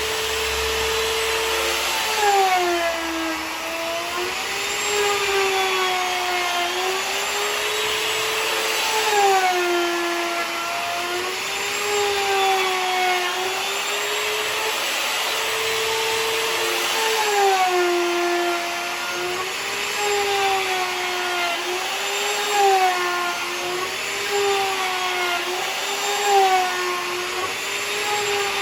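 Electric milling tool's motor whining as it cuts across a walnut tabletop to level it, its pitch dipping under the cutting load and recovering again every second or two.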